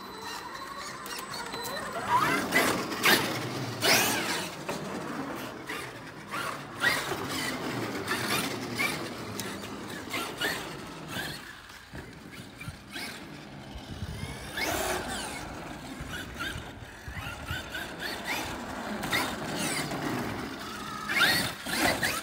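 Traxxas X-Maxx RC monster truck's brushless electric motor whining, rising and falling in pitch as the truck speeds up and slows down, several times over.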